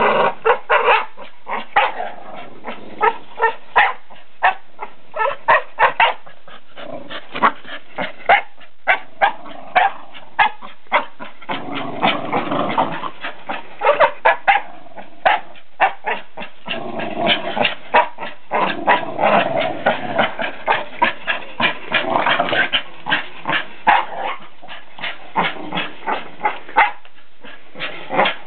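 Two Staffordshire bull terriers playing tug-of-war with a rag toy, growling in stretches, over a steady run of sharp clicks and scuffs.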